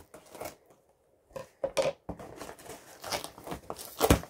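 A small shipping box and its packaging being opened by hand: irregular tearing, rustling and crinkling, with a louder thump near the end.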